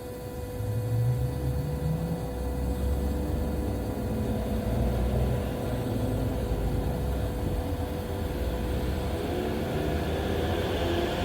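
DS 7 Crossback on the move, heard from the cabin: a low engine and road rumble with a thin, steady whining tone over it, the persistent strange noise the owner is trying to track down.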